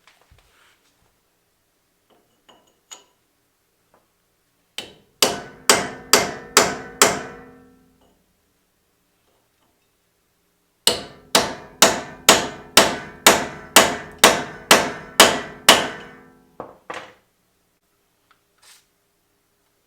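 Hammer pounding on the seized steel wheel hub bearing assembly of a Dodge Ram 1500 4x4 to drive it out of the steering knuckle: a few light taps, then a run of about six ringing metallic blows, a pause, and a longer run of about a dozen blows at roughly two to three a second.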